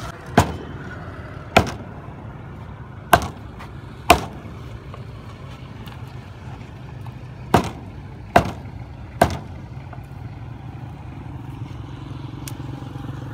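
A heavy cleaver chopping fish on a wooden stump block: seven sharp chops at uneven gaps, with a fainter knock near the end. A steady low hum runs underneath.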